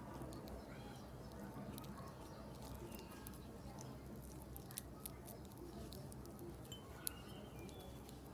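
Slime being kneaded and pressed between fingers: faint, scattered sticky clicks and squelches, a few sharper pops standing out.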